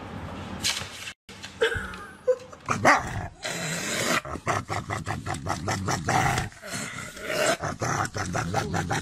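Siberian husky growling and grumbling in a long run of rough, rapid pulses while a hand rubs and squeezes its face, starting about three seconds in.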